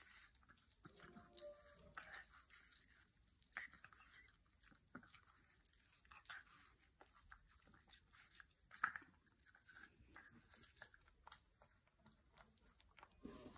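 French bulldog puppy biting and chewing a slice of watermelon: faint, irregular crunching, with one louder crunch about two-thirds of the way in.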